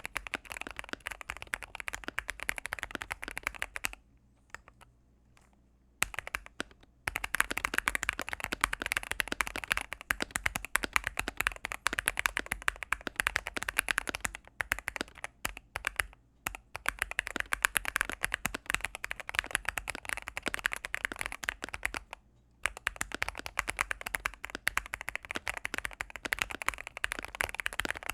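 Continuous fast typing on a gasket-mounted Akko MOD005 mechanical keyboard with Gateron Pro Yellow linear switches and ASA-profile keycaps: a dense stream of key strikes, with a pause of about two seconds about four seconds in and a shorter pause past twenty-two seconds.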